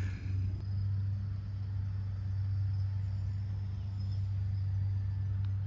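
Steady low rumble, and a faint tap near the end as a putter strikes a golf ball.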